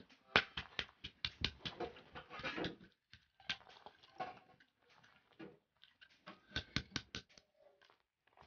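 Small metal hammer cracking walnuts on a flat stone slab: quick runs of sharp knocks and shell cracks, with a sparser stretch in the middle while the broken shell is picked apart.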